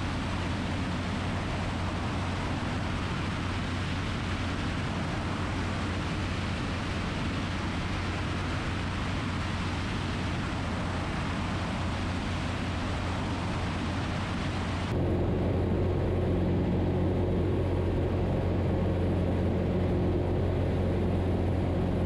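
Zenith CH 750 Cruzer light aircraft in steady cruise: constant engine and propeller drone mixed with heavy wind rush, heard from outside on the airframe. About two-thirds of the way through, the wind hiss drops away suddenly and the drone turns into a steadier, slightly louder hum heard from inside the cockpit.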